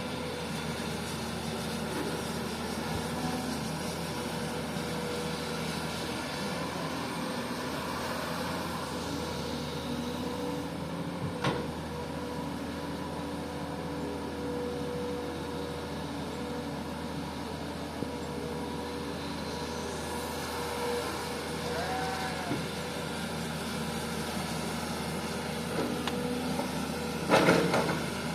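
Komatsu PC200 hydraulic excavator's diesel engine running steadily. A single sharp knock comes about a third of the way in, and a louder, brief metallic clatter near the end.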